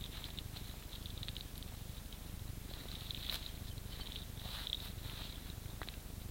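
Low wind rumble on the microphone, with clusters of faint, high, quick chirping calls from birds coming and going, busiest around three and four and a half seconds in.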